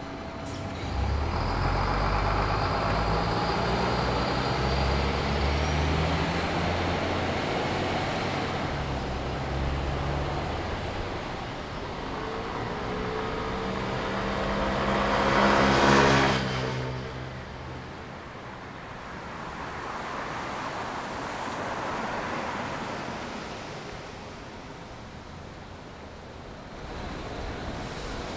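Road traffic on a wet city street. A heavy vehicle's engine runs low and steady for the first ten seconds or so. Then a vehicle passes close about sixteen seconds in, loudest there, with a hiss of tyres on the wet road, and lighter traffic noise follows.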